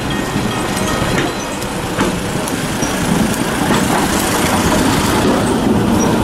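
Model T Ford rail car's engine running as the car approaches along the track, growing louder as it draws alongside.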